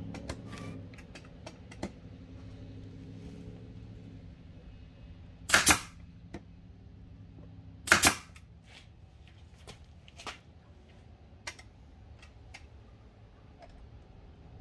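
Pneumatic brad nailer firing twice, about two and a half seconds apart, driving brads through kerfed plywood, with light clicks of handling in between.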